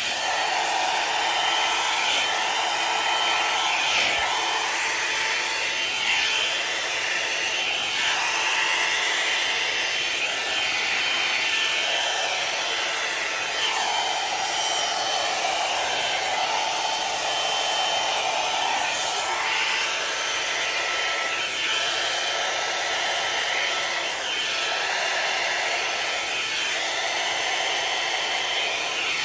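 Hot-air round brush dryer running on its first setting, a steady rush of blown air that swells and fades every few seconds as the brush is worked through the hair.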